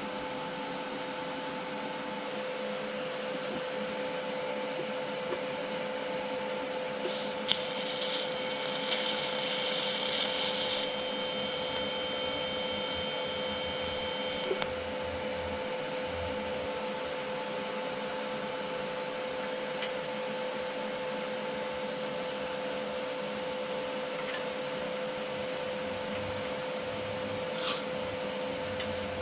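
A machine's steady hum with a held drone, and a crackling hiss that starts with a sharp click about seven seconds in and lasts about four seconds.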